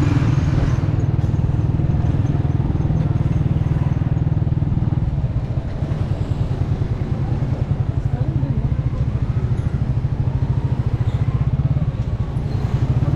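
Motorcycle engine running at low speed beneath the rider, a steady, fast low pulsing that eases slightly about five seconds in, with street traffic around it.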